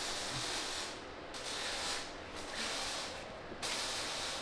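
Hissing spray in repeated bursts of about a second each, with short breaks between.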